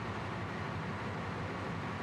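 Ship's engine-room machinery running: a steady, even drone with no breaks or changes.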